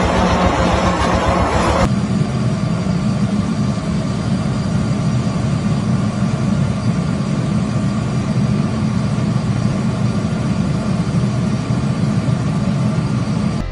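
Loud, even machinery noise that changes abruptly about two seconds in to a steady low rumble, like machines running in a workshop.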